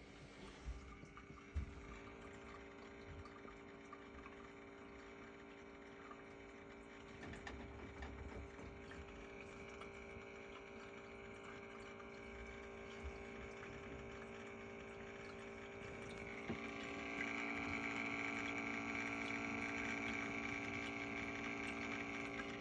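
Small pump of a miruto automatic pet water fountain humming as water trickles, with a grinding, rattling edge that grows louder and harsher about two-thirds of the way through. The owner reports this noise getting louder day by day and grinding since the pump began cutting out and restarting, a sign of a failing pump.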